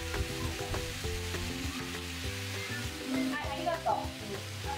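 Flour-dusted chicken thigh pieces frying in oil in an iron frying pan, a steady sizzle, with soft music underneath.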